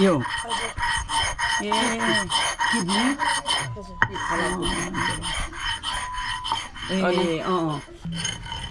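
Iron blade scraped back and forth on a flat stone slab in rapid, repeated rasping strokes.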